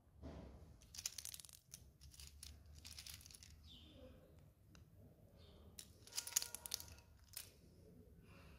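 Faint rustling and crackling with a few light clicks as broken plastic pieces of a crushed wired gamepad are picked up and handled, in short bursts, the loudest about six seconds in.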